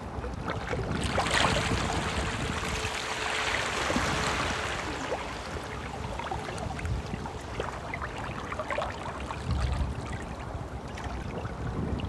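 A stream flowing steadily, water running and splashing, swelling louder for a few seconds near the start.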